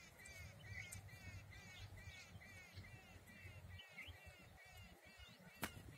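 A bird calling over and over, faint short arched chirps about three a second, over a low rumble, with one sharp click near the end.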